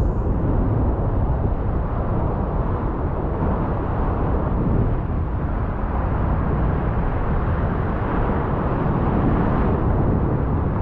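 Ocean surf breaking and washing over a lava-rock shoreline, a steady loud rush, with wind rumbling on the microphone.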